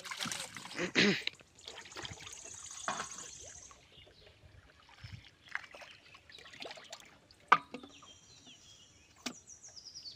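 Water splashing and trickling, loudest in the first second or so, with one sharp knock a little past the middle.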